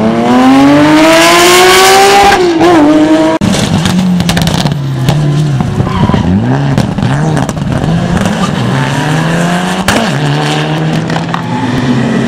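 Rally car engines at full throttle. First a Porsche 911 rally car accelerating hard, its revs climbing steadily for about two seconds before a quick lift and blip. After a cut, a Mitsubishi Lancer Evolution rally car slides through a bend, its revs rising and falling again and again, with tyre squeal.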